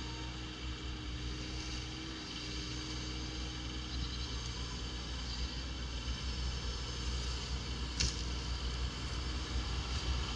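Bobcat E35 mini excavator's diesel engine running steadily as the machine travels on its tracks, with one sharp knock about eight seconds in.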